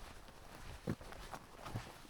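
Footsteps of a person walking: two heavier steps a little under a second apart, with lighter ticks and crunches between them.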